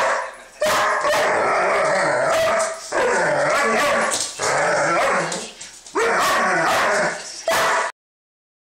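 A Bichon and a Doberman play-fighting, giving long bouts of wavering growls mixed with barks and yips, four runs of a second or two each. The sound cuts off suddenly about eight seconds in.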